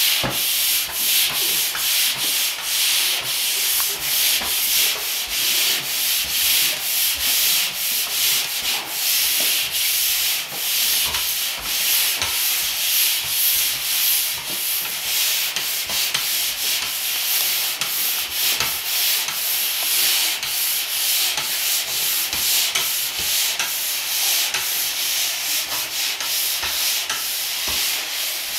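Drywall pole sander with 120-grit paper sanding dried joint compound on drywall in quick, continuous back-and-forth strokes: light sanding that only knocks down the edges of the mud.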